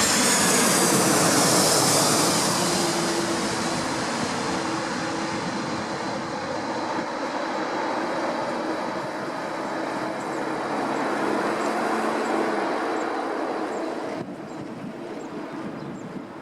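Four-engined Airbus A340's jet engines on landing approach, a loud rushing noise with a faint steady whine that slowly fades as the airliner moves away.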